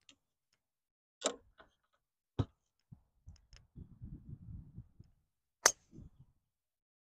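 Golf driver striking a ball off the tee: one sharp crack about five and a half seconds in, the loudest sound, after a few fainter clicks.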